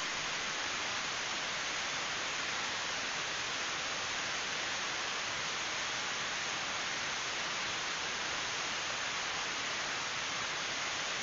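Steady, even hiss on a trail camera's night recording, with no animal sounds or other events standing out.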